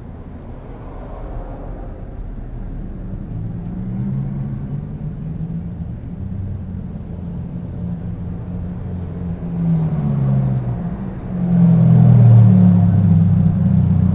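Low rumble of a motor vehicle's engine running, shifting in pitch and growing louder about ten seconds in and again near the end.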